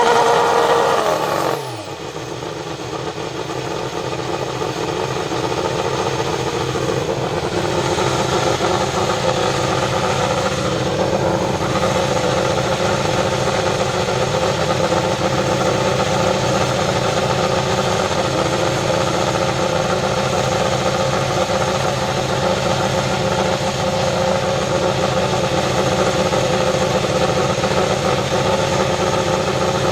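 2018 Ferrari SF71H Formula 1 car's turbocharged 1.6-litre V6 at high revs, its pitch falling steeply about a second and a half in, then running steadily at lower revs, its level slowly rising over the next several seconds.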